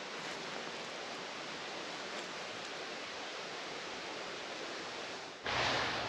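Steady, even rustling hiss of grass and leaves along a path through dense undergrowth. It turns louder and deeper about five and a half seconds in.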